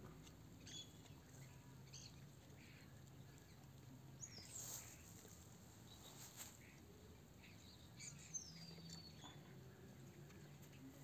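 Near silence with faint, scattered high-pitched chirps and squeaks and a few light ticks.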